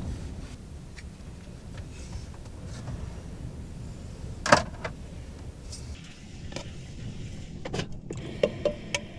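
Dishes and kitchen fittings being handled while tidying a campervan kitchen: one loud sharp knock about halfway through, then a few quick clicks and clatters near the end, over a low steady rumble.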